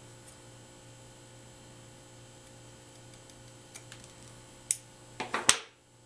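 Steel scissors cutting an HDMI cable end: a sharp snip about four and a half seconds in, then a louder quick cluster of clicks as the scissors are set down on the table. A faint steady hum sits underneath.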